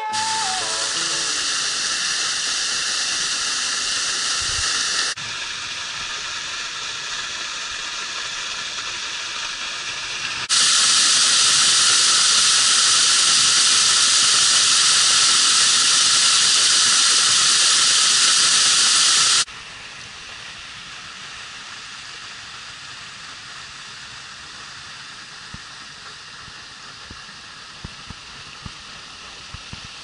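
Water of a partly frozen waterfall pouring down behind its ice curtains, a steady rushing hiss. The level steps abruptly several times, loudest through the middle and quieter in the last third, with a few faint clicks near the end.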